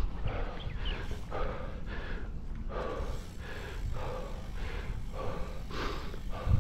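A cyclist panting hard, quick even breaths of someone out of breath from a steep climb, over a low rumble of wind on the microphone.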